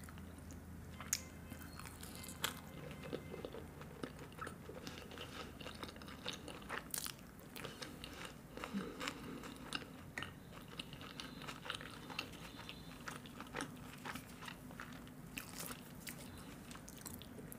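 Close-miked eating sounds: a mouthful of roti with palak paneer being chewed, with many small wet mouth clicks and a few sharper bites.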